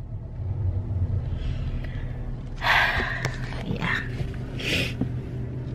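Steady low hum inside a car, with two audible breaths from the driver about three and five seconds in.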